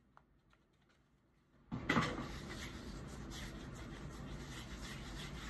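Near silence with a faint click, then, a little under two seconds in, a steady low hiss starts abruptly and carries on.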